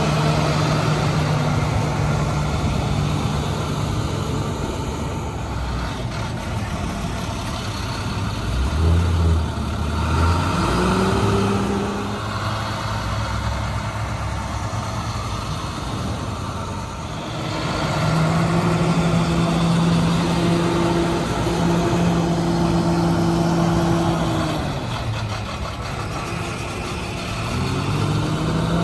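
School bus engines accelerating as the buses pull away one after another: the engine note rises in pitch about ten seconds in and again near the end, and holds steady for several seconds in between.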